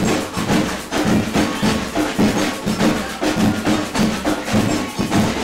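Samba drum band playing a steady, driving samba rhythm, with many fast, evenly spaced drum strokes from large bass drums and higher drums together.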